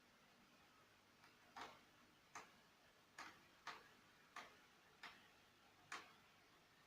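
A laptop casing being taken apart: a series of about eight sharp clicks, coming roughly every half to three-quarters of a second.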